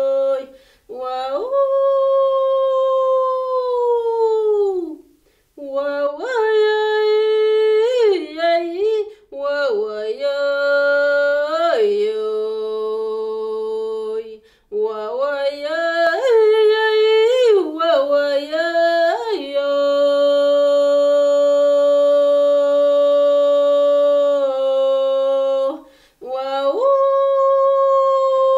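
A woman singing unaccompanied in long held vowel notes, swooping up into each phrase and sliding down at its end, with wavering turns between and short breaths between phrases.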